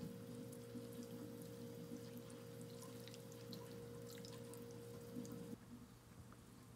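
Faint trickle and small drips of sauce poured from a plastic measuring cup onto braised oxtail, over a steady hum that cuts off about five and a half seconds in.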